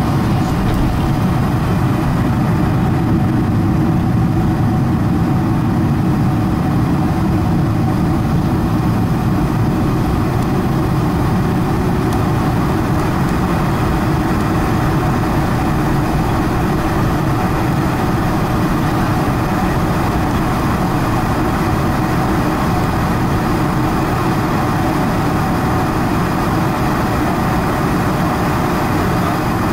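Cabin noise of a Boeing 747-400 heard from a window seat over the wing: its GE CF6 turbofans run at a steady idle while the airliner rolls on the ground after landing, with a low rumble and a constant hum.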